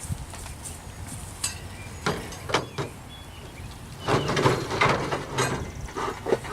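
Wooden beehive boxes and frames being handled. There are a few separate knocks and clunks, then a louder run of clattering and scraping about four seconds in.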